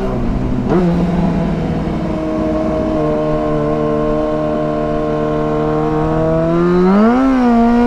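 Yamaha FZ6 Fazer's inline-four engine running under way at a steady pitch, with one brief rise in revs and drop back near the end.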